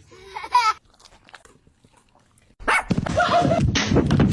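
A dog vocalizing: a short wavering whine in the first second, then, after a pause, a loud dense run of dog noise lasting to the end.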